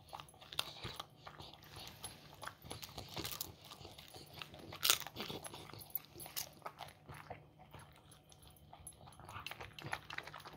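Beagle eating from a stainless steel bowl: irregular chewing and crunching with sharp clicks, the loudest about five seconds in.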